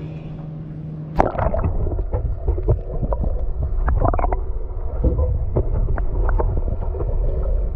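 Water slapping and gurgling against a small boat's hull, with a low rumble and scattered knocks. A steady low hum stops about a second in.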